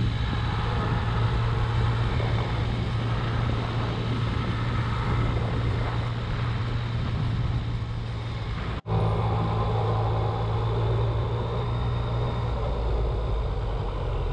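Yamaha MT-09's three-cylinder engine running steadily while riding along at an even pace, with road noise. The sound drops out for an instant about nine seconds in.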